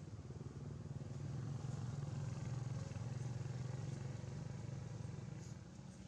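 Engine of a passing motor vehicle, a low rumble that grows louder over the first couple of seconds and then fades away.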